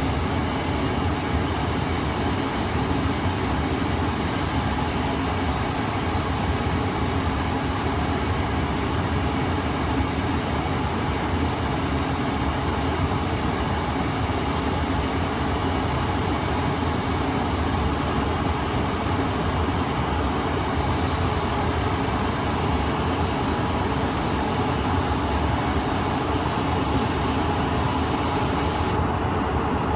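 Steady cabin noise of a Bombardier CRJ-700 regional jet: the rush of air over the fuselage and the hum of its two rear-mounted GE CF34-8C turbofans, with a few steady engine tones under it. About a second before the end the hiss in the top range drops away.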